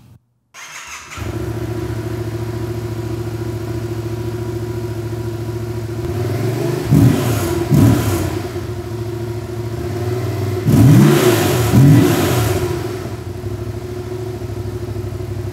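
Yamaha FZ-07's 689 cc parallel-twin on its stock exhaust, cold-started: a short crank, then it catches about a second in and settles into a steady idle. Around the middle the throttle is blipped twice, and a few seconds later twice more, each rev rising and falling quickly before it drops back to idle.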